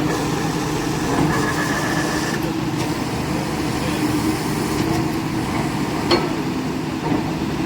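An engine running steadily, with a sharp knock about six seconds in.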